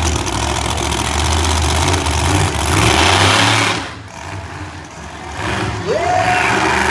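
Monster truck engine running loud and revving, its pitch climbing, then dropping away abruptly just under four seconds in before picking up again near the end.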